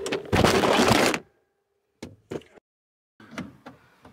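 A burst of rustling and scraping, then a few short plastic clicks and knocks with silent gaps between: the Mustang's radio face panel being pried loose from the dash.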